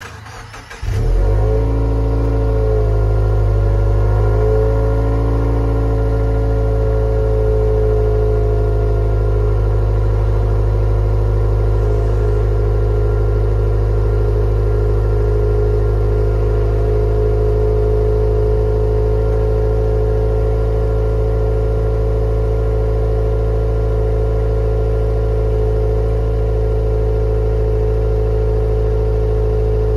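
Subaru Legacy GT Spec-B's 2.0-litre turbocharged flat-four, breathing through the stock exhaust with an HKS downpipe, starting about a second in. Its pitch wavers briefly, then it settles into a steady idle.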